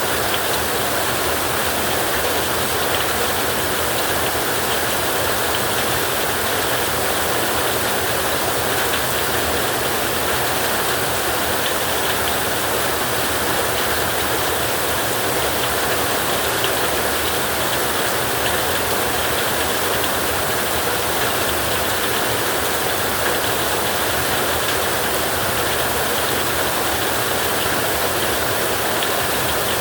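Heavy rain falling steadily on a tin roof, a dense, even hiss with no breaks.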